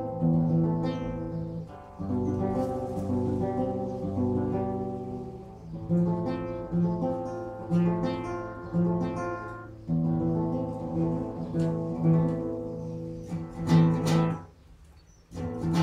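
Acoustic guitar played solo: plucked melody notes over bass notes and strummed chords in a steady rhythm, with a brief pause near the end before the playing resumes.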